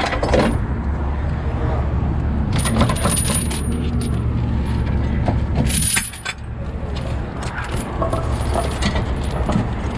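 Steady low hum of a heavy rotator tow truck's diesel engine running, with bursts of metallic clinking and jingling about two and a half seconds in and again near six seconds.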